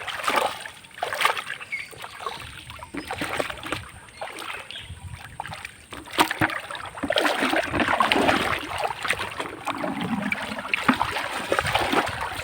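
Irregular splashing and sloshing of shallow muddy water as hands grope and scoop through it, busier in the second half.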